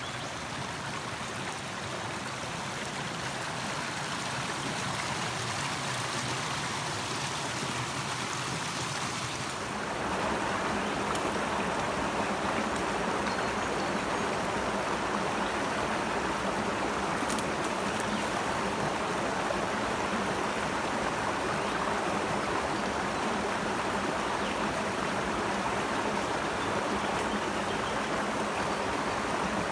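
Creek water running over rocks and between pools, a steady rush. About ten seconds in it becomes louder and fuller, then holds steady.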